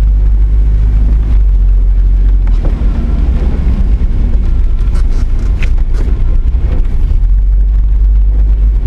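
A truck driving on wet, flooded roads, heard from inside the cab: a steady low rumble from the engine and tyres over a hiss of water, with a few brief clicks about halfway through.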